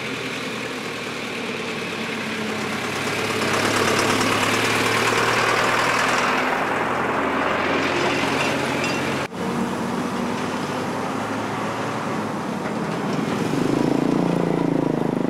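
Truck engine running with a steady low hum under a wash of road and wind noise; the sound dips for an instant about nine seconds in.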